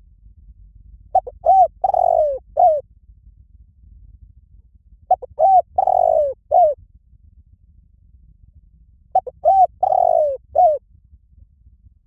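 Spotted dove cooing: three phrases about four seconds apart. Each phrase is a quick run of short coos with one longer coo near its end, and lasts under two seconds.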